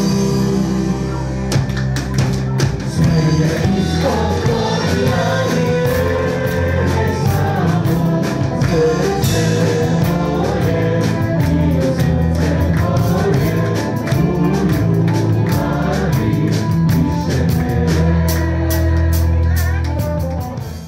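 Background music with singing over a steady bass and drum beat, fading out at the very end.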